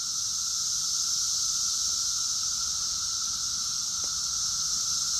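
Periodical cicadas chorusing: a steady, unbroken drone made of a high hiss-like buzz and a lower, even whine.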